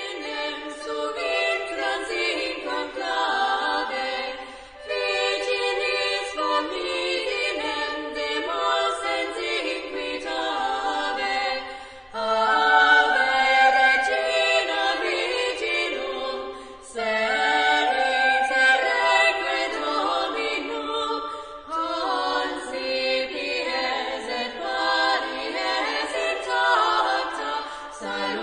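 Background music of voices singing a slow chant without instruments, in long phrases that pause every few seconds.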